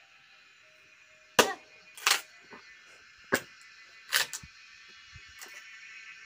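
Axe striking a wooden log: about five sharp chopping blows, roughly one a second, over a steady high hiss.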